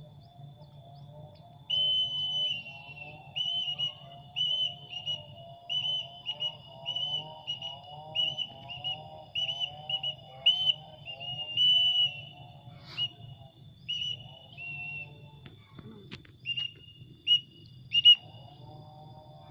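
Whistle blown in short, sharp, repeated notes, about two a second, pausing briefly near the middle and ending in a few spaced blasts. It is the call used to bring a flying pallow bird back down to the handler's hand.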